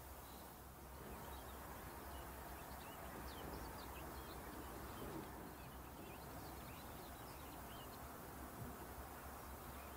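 Faint outdoor ambience: a steady low hiss and rumble with scattered short, high chirps of distant small birds.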